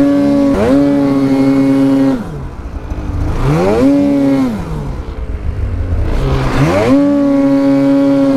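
A 2023 Polaris 9R Pro RMK snowmobile's two-stroke twin is revved three times. Each time the pitch climbs quickly, holds for a second or two and drops back to idle. The sled's track is spinning to dig snow out of a pit.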